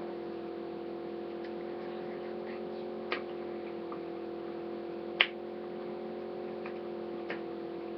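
A few sharp clicks from hands handling small items, the loudest about five seconds in, over a steady low electrical hum.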